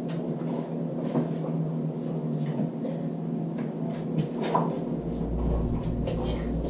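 Scattered knocks and clicks of a refrigerator door being tugged and bumped, over a steady low hum; a low rumble comes in about five seconds in.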